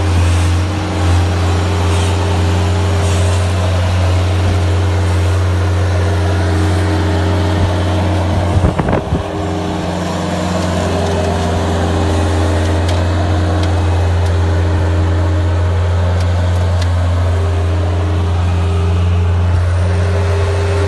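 Bobcat skid-steer loader's engine running steadily with a low hum, with a brief clatter of knocks about nine seconds in.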